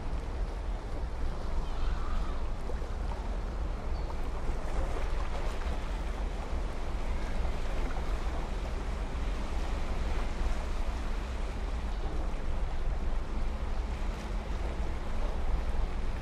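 Steady wind and water noise with a constant low rumble.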